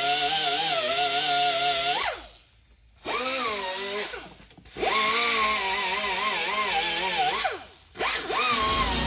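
Handheld power grinder stripping thick paint from a car body panel down to bare metal. Its whine wavers as it bears on the panel. Three times it is let off and winds down, about two seconds in, around four seconds and near the end, and each time it starts up again.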